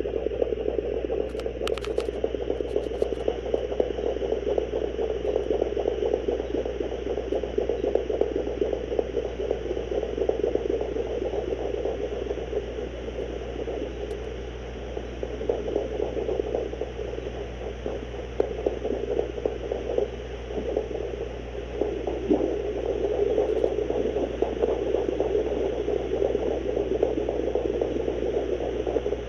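Handheld fetal Doppler's speaker playing the sound picked up through a pregnant dog's belly: a steady rushing noise with the pulsing of fetal puppy heartbeats, the sign of a confirmed pregnancy, here at day 48 of gestation.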